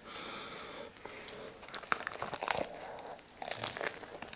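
Crackly crunching of someone biting into a burger served in a crusty bread roll, followed by chewing.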